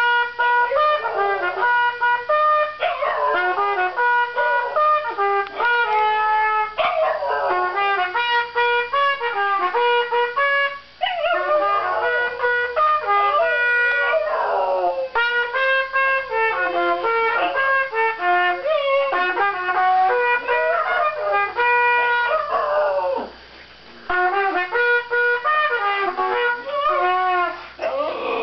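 A trumpet playing held notes and short phrases while a small dog howls along, its wavering howls gliding up and down over the notes. The playing breaks off briefly about 23 seconds in.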